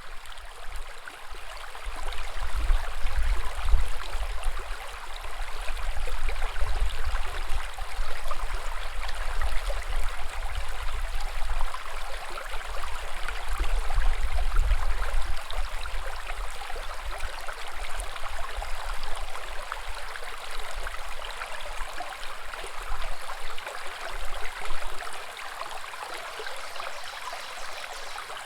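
Woodland brook babbling, a steady rush and trickle of water, with a low rumble underneath that stops near the end.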